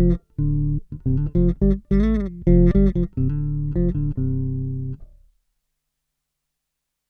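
Electric bass played through a Boss OC-2 Octave pedal, with its two-octaves-down voice and the dry bass mixed at half each, giving a thick, deep tone. A short riff of separate staccato notes, one bent up and back about two seconds in, ends on a held note that dies away about five seconds in.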